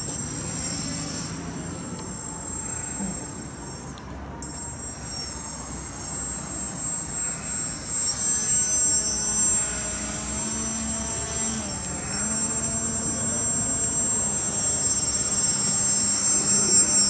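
Electric motor and propeller of a powered RC paraglider's backpack drive running: a steady high whine over a lower drone, growing louder over the second half.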